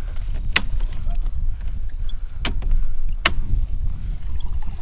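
Small boat under way on an electric trolling motor at full speed: a steady low rumble of motor, water and wind. It is broken by three sharp knocks, about half a second, two and a half and three and a quarter seconds in.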